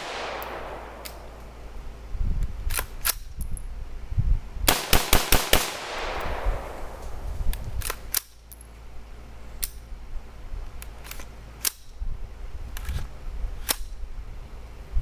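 AR-15 rifle firing .223 steel-cased ammunition: a rapid string of about five shots about five seconds in, each with a long echoing tail, with a few fainter sharp reports scattered through the rest.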